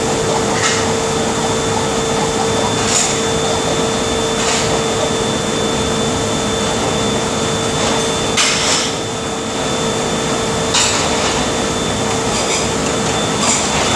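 Dishes and metal utensils clattering a handful of times over a loud, steady mechanical drone with a constant hum.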